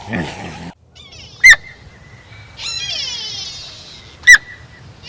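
The end of a low animal growl, then bird calls: two loud, short squawks about three seconds apart over a fast, high trill and a thin steady whistle.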